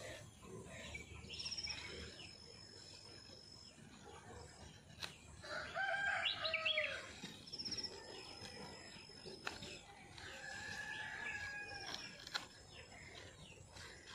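A rooster crows once, about six seconds in, over thin high bird chirps and calls.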